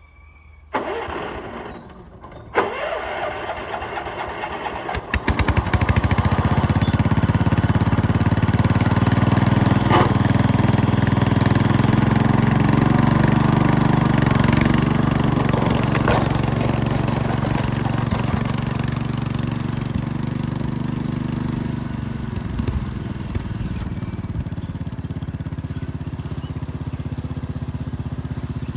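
Cub Cadet 104 garden tractor's engine coming up to speed about five seconds in and running hard under load as the tractor tows another mower, a load test of its freshly welded, locked differential. It eases off a little near the end.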